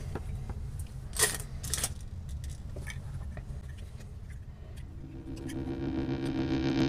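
A few light clicks and taps of small motor and kit parts being handled, then background music fading in and growing louder from about five seconds in.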